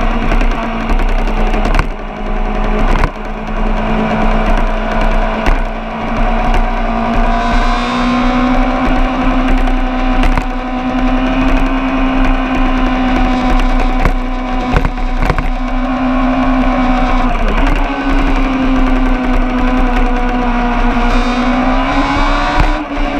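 A racing engine held at high revs on a track. Its note stays steady and high, drifting slowly up and down in pitch, with a low rumble underneath and a few sharp clicks.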